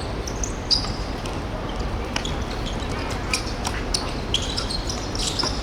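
Korfball game sounds in a sports hall: players' court shoes squeaking on the floor in short chirps, with several sharp knocks of the ball being caught or hitting the floor, the loudest about a second in, over a steady low hall rumble.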